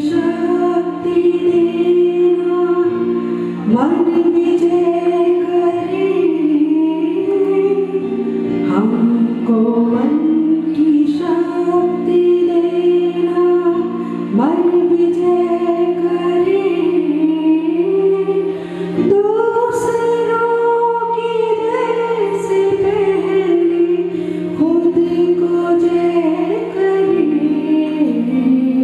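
Hindi devotional prayer sung by students, a slow melody of long held notes over a steady low drone, with a few swoops up onto notes.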